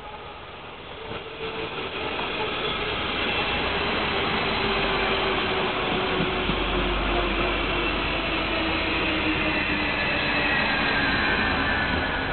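Veolia Stadler GTW diesel multiple unit running alongside the station platform. It grows louder over the first few seconds, then holds a steady rumble with a deep low hum, and several tones slide slowly down in pitch.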